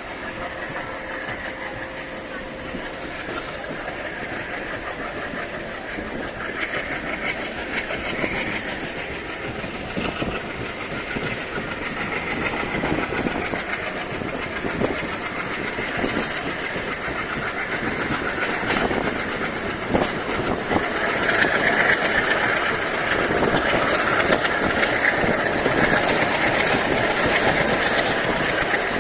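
Express passenger train departing, with its wheels clattering over the rail joints. The sound grows steadily louder as the train gathers speed.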